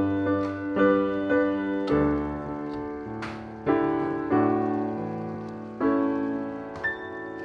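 Background piano music: slow notes and chords struck about once a second, each ringing on.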